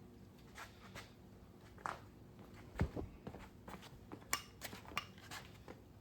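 Light, irregular metal clicks and knocks, about a dozen of them, as a hand grease gun is handled and brought to a grease zerk on a stump grinder.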